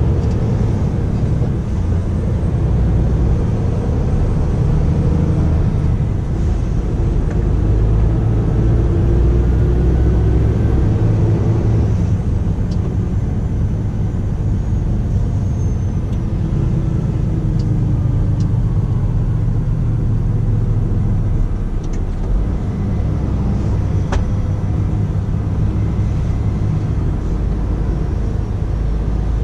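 Scania R450 truck under way: the diesel engine runs under a steady low rumble of road noise, its note rising and falling a few times as the revs change. A single sharp click late on.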